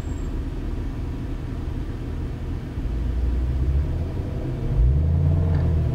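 Porsche 911 GT3's flat-six engine running at low speed, a low rumble heard from inside the cabin, growing louder about three seconds in and again near the end as the throttle is eased on.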